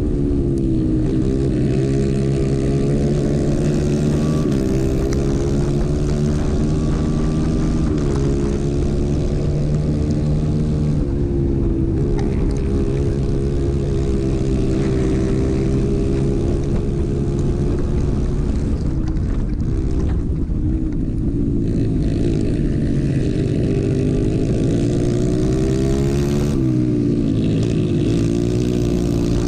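Racing kart engine running hard at high revs, heard up close from on board. Its pitch drops three times as the kart slows for corners, then climbs again as it accelerates onto the straights.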